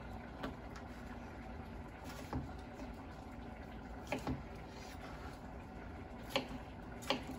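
Chef's knife cutting a cucumber on a plastic cutting board: about six irregular, sharp taps of the blade hitting the board over a low, steady background hum.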